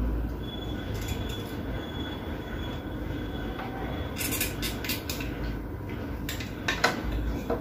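Small sharp clicks and light scrapes of tools against a fan's control circuit board as the old push-button switches are desoldered and prised off, in a cluster around the middle and another near the end, the loudest near the end. A steady background noise runs underneath.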